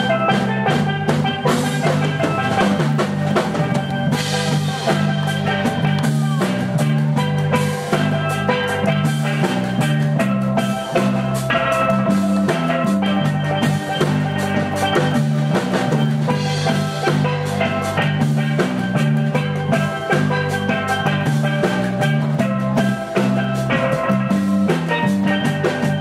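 Live reggae band playing an instrumental passage: a steel pan melody over a steady repeating bass line, drum kit and hand percussion, including timbales and cowbell.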